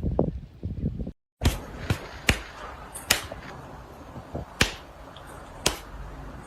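A series of about six sharp knocks at irregular intervals, following a brief dropout about a second in.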